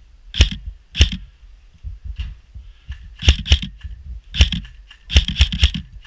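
Airsoft guns firing during a game: about eight sharp snapping shots at uneven intervals, some single and some in quick twos and threes, over a low rumble.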